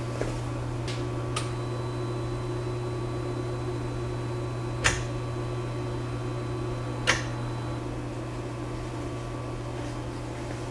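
Two sharp clicks about two seconds apart over a steady low hum, as the newly wired retrofit headlights are switched through their modes.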